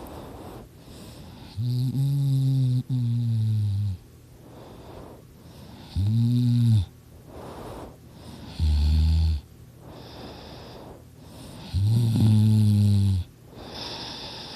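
A sleeping person snoring loudly. There are four deep, rattling snores, each one to two seconds long and coming every three to four seconds, with quieter breathing between them.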